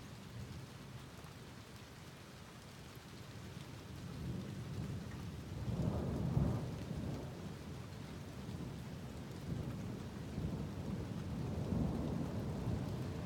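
Thunderstorm: steady rain falling with rolling thunder, the rumble swelling loudest about halfway through and again, more weakly, near the end.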